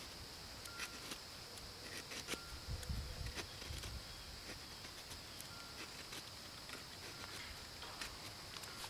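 Knife pulled back along a stick, shaving thin wood curls for a feather stick: faint scraping strokes with scattered light clicks.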